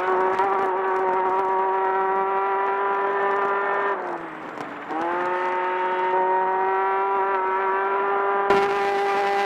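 Desert race buggy's engine running at steady revs under throttle, the pitch dipping for about a second partway through and then climbing back to hold steady again. A short knock sounds near the end.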